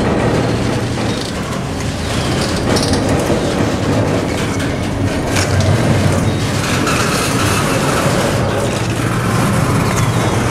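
Double-stack intermodal container cars of a CSX freight train rolling past at low speed, their wheels rumbling on the rails with scattered clicks and knocks.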